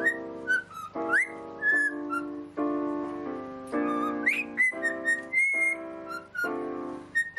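A parrot whistling short notes, some sliding sharply upward, over a backing of sustained chords.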